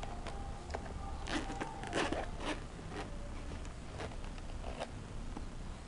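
Zipper of a hard-shell sunglasses case being pulled open in several short pulls, most of them close together about two seconds in, with a few more after.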